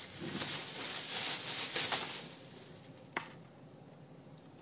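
Thin clear plastic bag rustling and crinkling as it is opened out by hand, louder over the first two seconds, then quieter, with a single sharp click about three seconds in.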